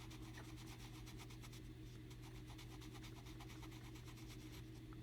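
Colored pencil rubbing on sketchbook paper in small circular strokes: a faint, rapid scratching.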